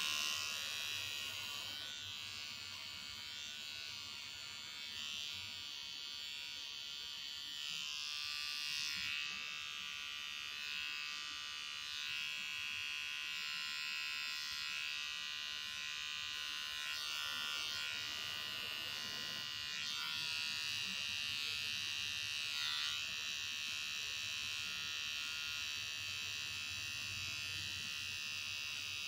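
Small handheld electric pet clipper running with a steady buzz as it trims the fur between a Ragdoll cat's paw pads. The buzz rises and falls a little in level and never stops.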